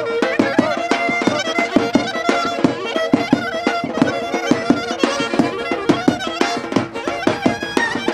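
Instrumental traditional folk dance music with a fast, steady beat under a lead melody.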